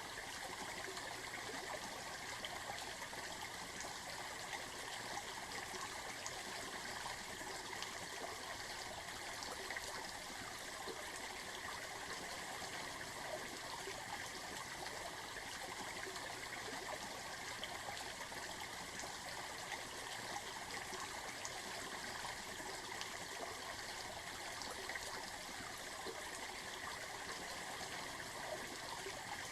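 Running water flowing steadily, an even rushing and trickling with no change in level.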